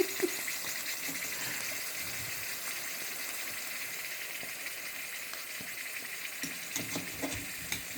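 Liquid sizzling with a steady hiss on a hot excavator hydraulic part that had been heated to free it, fading slowly. It sounds like frying in a hot pan.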